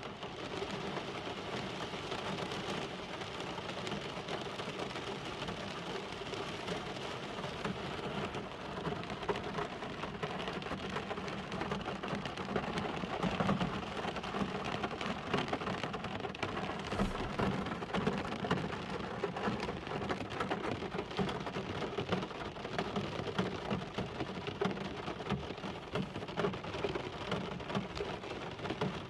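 Steady rain falling, the drops pattering on a surface throughout.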